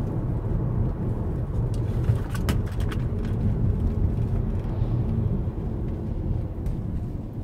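Steady low rumble of road and engine noise inside the cabin of a 2015 Toyota Camry driving along, with a few light clicks about two to three seconds in.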